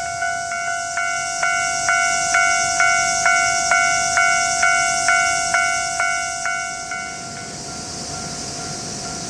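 Railway level-crossing alarm ringing, an even two-pitch bell strike about twice a second, fading out about seven seconds in. A steady high hiss runs underneath.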